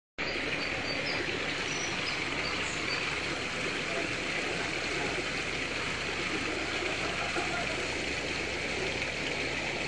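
Small rock waterfall spilling into a garden pond: a steady splashing of falling water.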